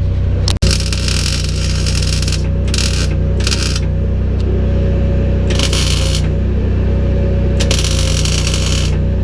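Electric arc welding on an axle's spring perches: the arc crackles and sizzles in several spells of half a second to two seconds, starting and stopping sharply, over a steady low hum.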